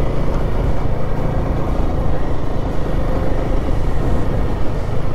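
Royal Enfield Himalayan 450's single-cylinder engine running steadily while riding, mixed with loud wind rushing over the camera microphone.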